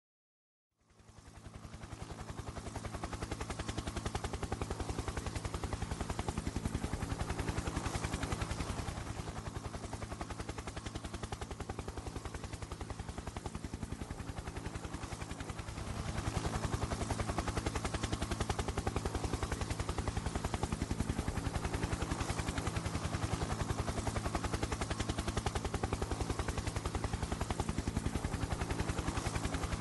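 Helicopter rotor chopping steadily in very rapid, even beats over a low engine hum. It fades in about a second in and grows louder about halfway through.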